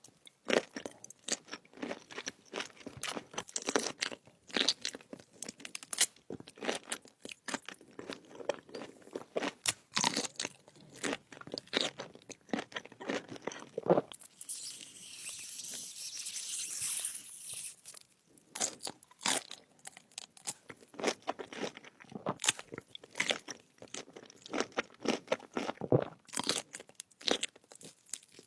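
Crunchy food being bitten and chewed close to the microphone: a rapid run of crisp crunches. Just past the middle there is a steady hiss lasting a few seconds.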